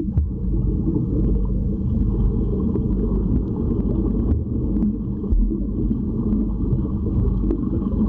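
Steady muffled low rumble of pool water heard underwater as swimmers move through it, with scattered faint clicks and ticks.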